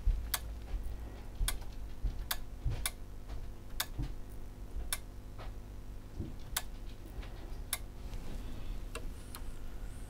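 Panasonic SA-BT330 home theatre unit clicking on and off at uneven intervals, about ten sharp clicks: it keeps shutting down because one of its supply voltages is missing.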